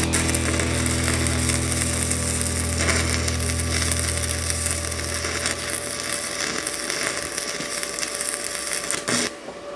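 Stick (MMA) welding arc from a Trato TIN 160 inverter set to about 165 amps, crackling and sizzling as the electrode burns holes through thin steel tubing. A low steady hum underneath fades out about six seconds in. The arc cuts off suddenly near the end, just after a short loud burst.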